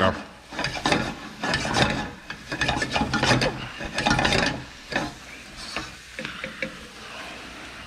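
A quick run of dry clicks and scrapes from kitchen tools being worked, busiest for about the first five seconds, then fainter and sparser.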